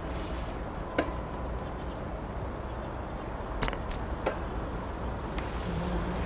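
Steady low noise of wind and motion on a moving action camera's microphone, with a few sharp clicks about a second in and a small cluster around four seconds.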